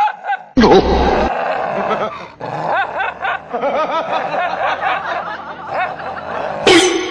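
A dog snarling and growling aggressively in short, repeated bursts, squaring off at its own reflection as if at a rival dog.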